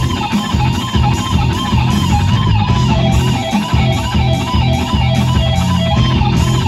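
Live band playing loud through the stage speakers: electric guitar over bass and drums, the guitar repeating a quick wavering phrase about three times a second.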